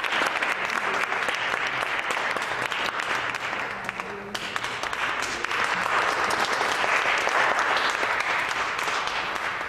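Audience applauding, easing off about halfway through, swelling again, then dying away near the end.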